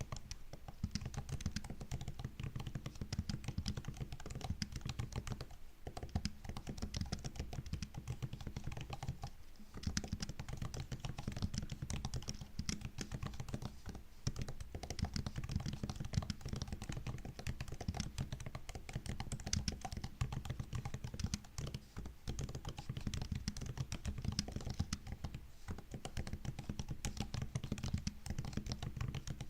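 Continuous fast typing on a MacBook laptop keyboard, soft dense key clicks with a few brief pauses.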